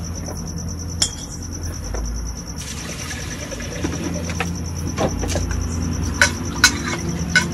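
A cricket trilling steadily, with sharp clicks and knocks of pots and bags being handled, once about a second in and several times near the end, over a low steady hum.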